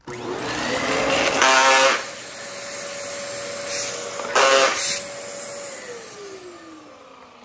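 Dyson DC14 upright vacuum cleaner starting up and running with a steady whine. It gives two short, loud grinding bursts from the brushroll, about a second and a half in and again about four and a half seconds in. Near the end the motor winds down with a falling pitch.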